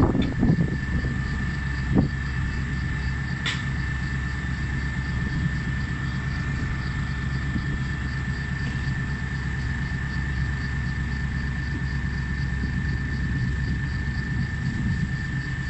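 Komatsu hydraulic excavator's diesel engine running steadily as it digs and loads a dump truck, with a steady high whine over the rumble. Heavy thuds at the start and again about two seconds in as the bucket empties soil into the truck's bed.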